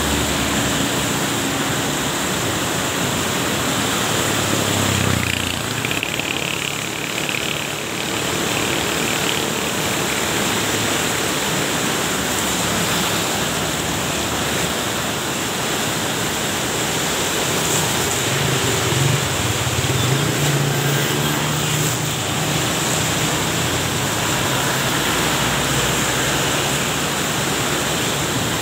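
A river in flood: fast, muddy floodwater rushing and churning in a steady loud wash of noise. A low hum rises under it about five seconds in and again around twenty seconds.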